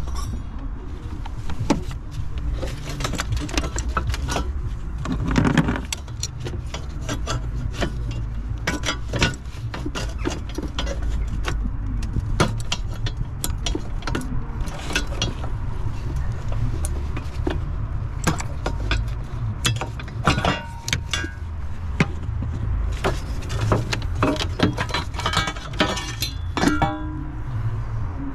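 Irregular clicks, knocks and rattles of hands and tools working on plastic covers and components in a van's engine bay, with a steady low rumble underneath.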